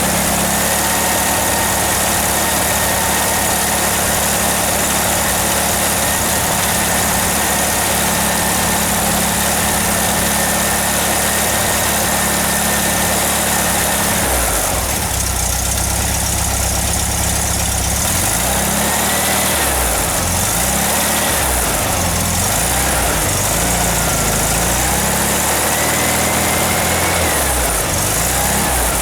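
Freshly built 1776 cc Volkswagen air-cooled flat-four, with a stock cam and single carburettor, running on its stand on its first start and not yet warmed up. It holds a steady fast speed, then drops to a lower speed about halfway, where the revs rise and fall a few times.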